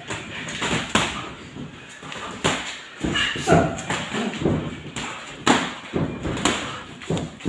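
Gloved punches landing during boxing sparring: a string of irregular, sharp thuds as boxing gloves hit gloves, guard and headgear.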